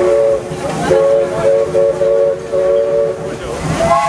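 A Disneyland Railroad steam locomotive's chime whistle sounding a three-note chord over the running train. One blast ends just after the start, and a longer blast, broken by a few short dips, runs from about a second in until near the end. A higher chord starts right at the end.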